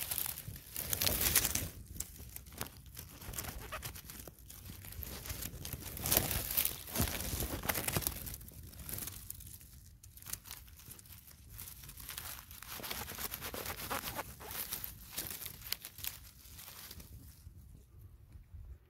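Dry leaf litter, twigs and low brush rustling and crunching underfoot as someone pushes through undergrowth, in irregular bursts that are loudest about a second in and again around six seconds.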